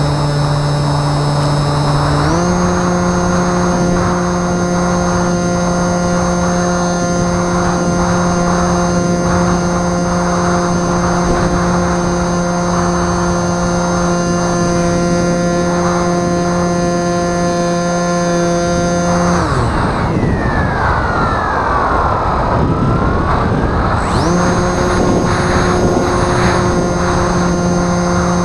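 Bixler 2 RC plane's electric brushless motor and propeller running at a steady high whine over wind noise. Its pitch steps up about two seconds in, the motor cuts out for about five seconds near the end, then it comes back on at the same pitch.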